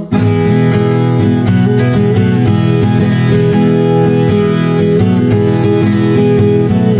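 Instrumental break of a country-style song: acoustic guitars strummed steadily, with no singing.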